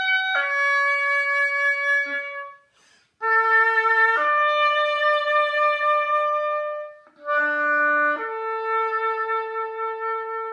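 Oboe playing a slow solo phrase of long held notes, with two short breaks about three and seven seconds in.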